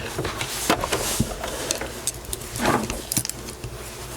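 Small plastic authenticator case being pried open with a plastic tool: scattered sharp clicks and short scrapes of plastic on plastic.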